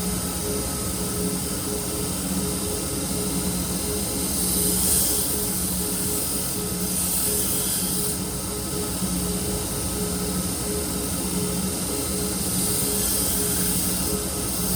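A powered grinder runs steadily, with a harsher high hiss coming and going several times, about four, five and seven seconds in and again near the end, as the knife's steel is pressed to the abrasive. This is grinding the Shun chef knife's edge back to remove chips and straighten a reverse bow.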